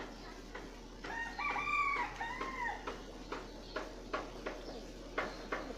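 A rooster crows once about a second in, a cock-a-doodle-doo of several linked notes lasting under two seconds. Irregular sharp clicks of pigeons pecking at their feed run throughout.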